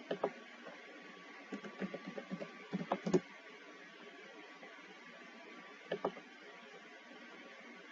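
Scattered clicks of a computer keyboard and mouse: a couple near the start, a quick run of a dozen or so from about a second and a half to three seconds in, and two more about six seconds in, over a faint steady hum.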